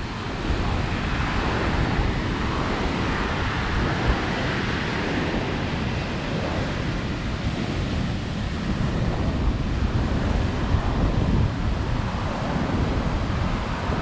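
Ocean surf breaking and washing up the beach, mixed with wind buffeting the action camera's microphone in a steady low rumble.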